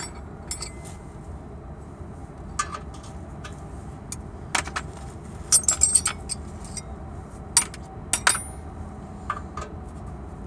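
Metal hand tools clinking: sockets and wrenches knocking together as they are handled to find the size of the muffler bolts. The clinks come singly and irregularly, with a quick cluster about halfway through.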